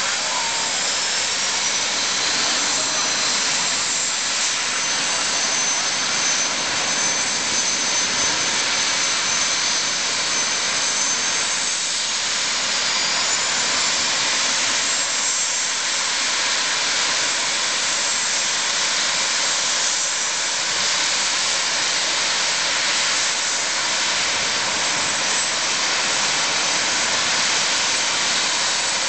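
Jet-turbine engines of jet funny cars running at idle on the start line: a loud, steady hiss with a thin high whine on top. The whine rises a step in pitch about a second in and again around twelve seconds in.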